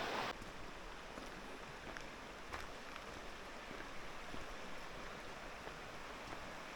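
Steady rush of a mountain stream. It drops suddenly to a lower level just after the start, with a few faint ticks over it.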